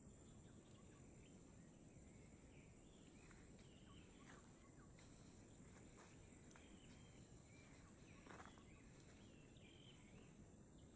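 Faint outdoor ambience: a steady high-pitched insect buzz, with short chirping calls every second or so, over a low rumble.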